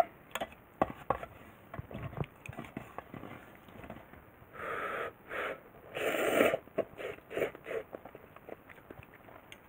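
Ramen noodles slurped from a mess tin, two long sucking slurps about halfway through, with chopsticks clicking and scraping against the tin's aluminium rim and side.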